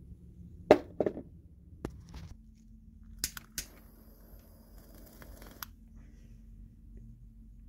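A few sharp knocks of handling, then a jet lighter clicks twice and hisses steadily for about two seconds as it lights the wicks of a spirit burner, cutting off sharply.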